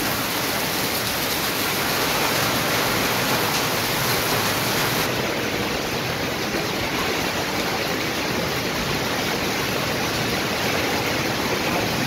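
Heavy rain pouring down onto a corrugated metal roof, a steady rushing hiss, with runoff streaming off the roof edge.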